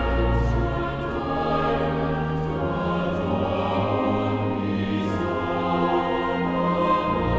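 Choral music: voices singing sustained notes over a held bass.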